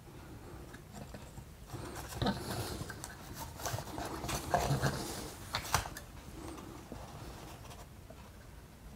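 Faint handling noises, light rustles and small clicks, as solder wire and a dishwasher control circuit board are handled and set up for soldering. They are thickest between about two and six seconds in.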